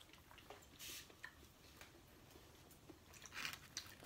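Near silence with faint eating noises at the table: a brief soft hiss about a second in and a faint mouth or food noise about three and a half seconds in.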